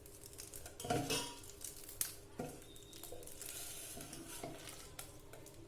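A ripe banana being mashed in a bowl: soft scraping and stirring, with a few sharp clicks against the bowl.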